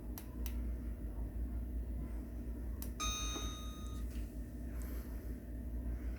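DJI Ronin-SC gimbal's pan motor giving one high, steady squeak lasting about a second, midway through, preceded by a few light clicks, over a steady low hum. The squeak is the pan-motor fault being shown.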